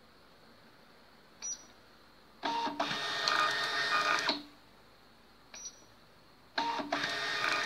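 Industrial thermal label printer printing and feeding paper out in two runs of about two seconds each, with a short tick about a second before each run.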